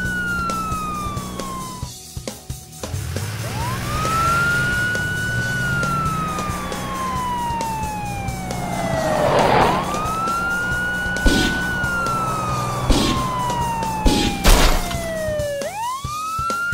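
Police car siren wailing: each cycle swoops up quickly, then slides slowly down over about six seconds, and starts again three times. Low background music plays beneath it, and a few short sharp hits come in the second half.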